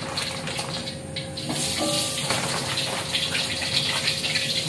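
Chicken nuggets going into hot cooking oil in a wok: a frying sizzle that grows louder about a second and a half in, then runs on steadily.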